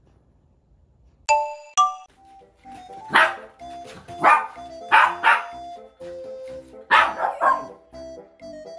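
Bichon frise barking in short bursts, about seven barks in bunches, over light background music that opens with a two-note chime.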